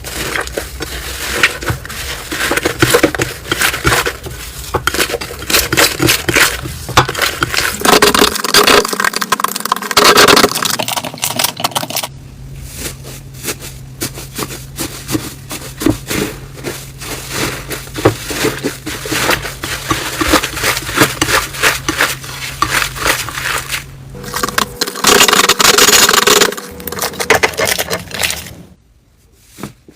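Hands squishing, pressing and poking slime, giving dense crackling and popping clicks. The texture of the clicks shifts several times, and the sound fades to faint pops near the end.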